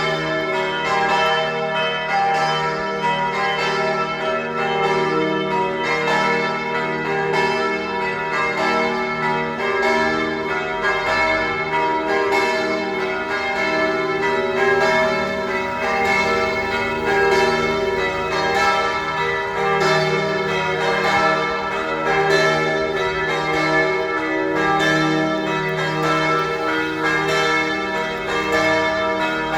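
Church bells ringing continuously, with strikes following closely on one another so their tones overlap into a steady peal.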